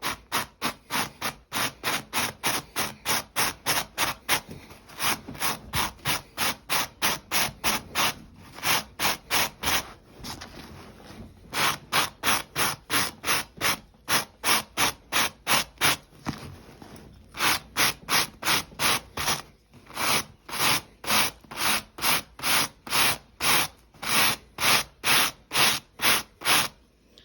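Steel wire brush scraped over a Velcro strip in quick repeated strokes, about three a second, in several runs with short pauses, raking lint out of the hooks.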